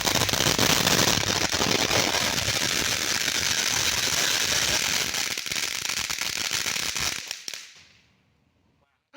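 Consumer firework crackling rapidly over a steady hiss, a dense stream of sharp pops that dies away about seven to eight seconds in.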